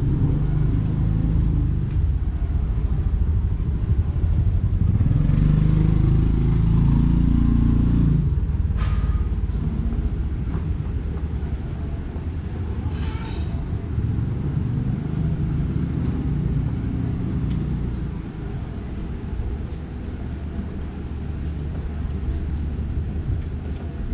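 Street traffic: motor vehicles and motorbikes running past close by, a steady engine rumble that swells loudest about five to eight seconds in and eases off toward the end.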